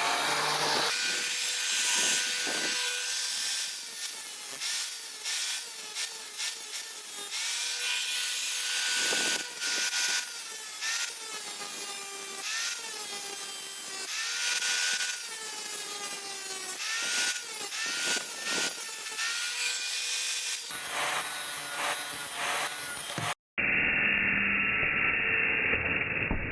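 Angle grinder grinding a steel saw blade: a high grinding hiss over the motor's whine, which sags in pitch each time the disc bites and climbs back as it eases off. Near the end the sound breaks off briefly and comes back muffled.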